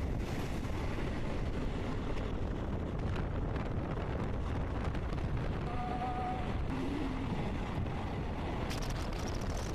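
Wind buffeting the microphone over the steady rumble of a moving passenger train, heard at an open carriage door. A faint, brief tone sounds about six seconds in.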